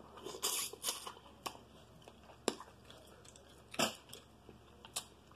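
A person chewing food close to the microphone: scattered sharp, wet mouth clicks about once a second, with quiet in between.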